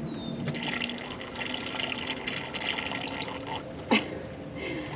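Boat livewell water draining out through its drain fitting with an irregular, sputtering gurgle. A sharp click about four seconds in.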